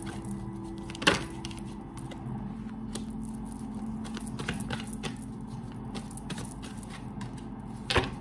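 A deck of tarot cards being shuffled by hand, a run of small papery clicks as the cards slide over one another. Two sharper knocks stand out, one about a second in and a louder one near the end as the deck is squared against the table.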